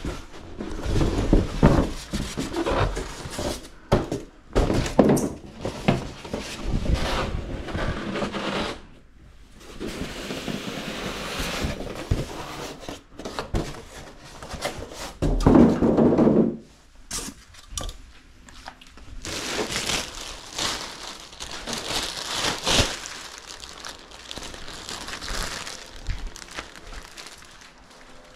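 A shipping box and packing material being handled: irregular knocks, bumps and scraping, with a heavier thump about halfway through, then a stretch of rustling.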